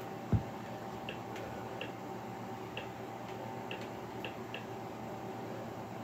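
A single low thump about a third of a second in, then faint, irregular short ticks over a steady hum of room noise.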